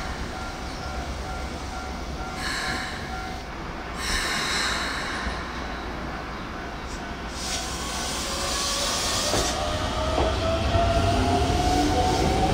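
Keikyu 1500 series electric train on the rails, growing louder as it approaches, with rail noise and high hissing patches. Near the end comes a whine that rises in pitch as the motors speed up.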